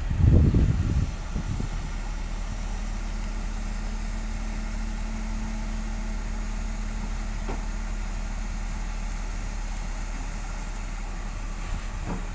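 Rough-terrain mobile crane's diesel engine running steadily while it holds a lifted steel I-beam. There is a louder low rumble in the first second.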